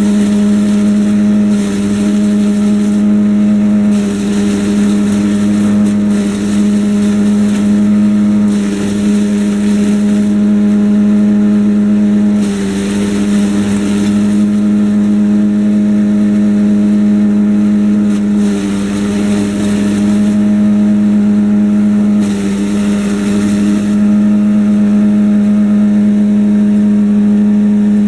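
Caravaggi TRX50 high-speed chipper on a walk-behind tractor, its engine running at a steady high speed while green corn stalks are fed in. Repeated stretches of chipping and blowing, each one to a few seconds long, ride over the engine, whose pitch sags briefly under the load.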